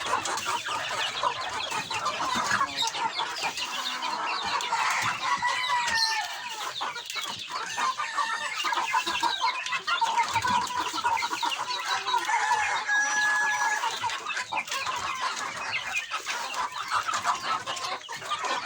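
A flock of young chickens calling continuously, with many short overlapping calls, as they are given corn feed.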